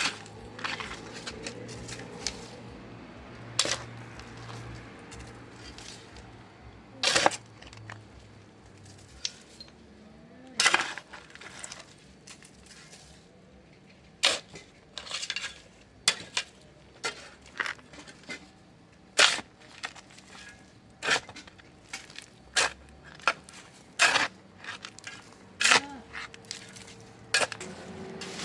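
Irregular sharp clinks and knocks of pots, dishes and utensils being handled, roughly one every second or two, some ringing briefly.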